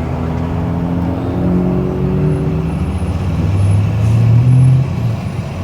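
Motor vehicle engine running with road noise: a steady low hum that shifts slightly in pitch and swells about four seconds in.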